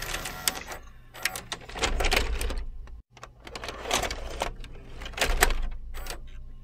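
VCR tape mechanism running, with irregular clicking and clattering over a steady low hum.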